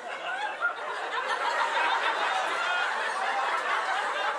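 Comedy club audience laughing and chattering, many voices at once at a steady level.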